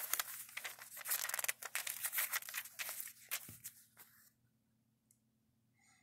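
Pages of an old 1946 paper booklet being flipped by hand: a quick run of papery rustles and flicks for about four seconds, then it stops.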